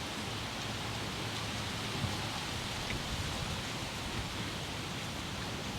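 A steady hiss of noise with a low rumble underneath, even throughout, with a couple of faint ticks.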